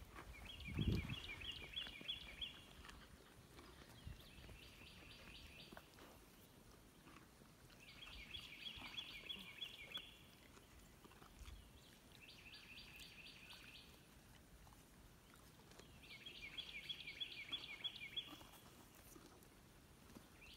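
A songbird singing the same short phrase of rapid, high repeated notes over and over, one phrase about every four seconds. A low thump about a second in is louder than the song.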